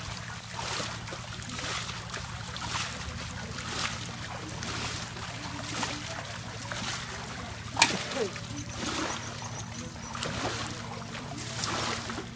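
Repeated splashing and sloshing of water as hands work through a fine-mesh net of small fish in shallow water, with one sharp knock about eight seconds in. A steady low hum runs underneath.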